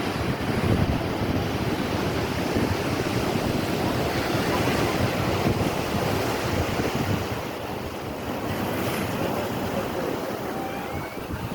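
Sea surf washing onto a beach, a steady rushing of breaking waves, with wind buffeting the microphone.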